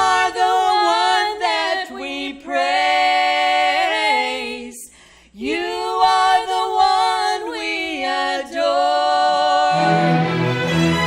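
Two women singing a gospel song as an unaccompanied duet, with a short break about halfway through. A lower-pitched backing part comes in near the end.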